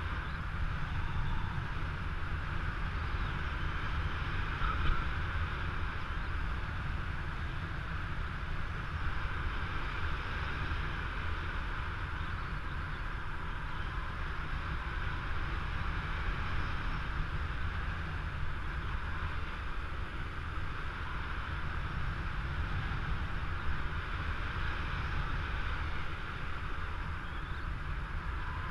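Steady wind rushing over the microphone of a camera flying with a paraglider in open air.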